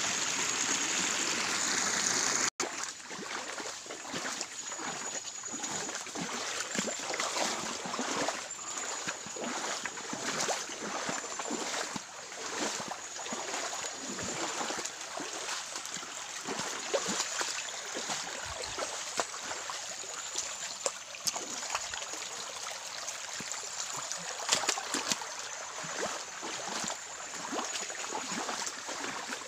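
Shallow muddy creek running and trickling, with many small rustles and knocks from someone moving along the bank through leafy undergrowth. The sound is louder for the first two or three seconds, then drops to a steadier, quieter run after a cut.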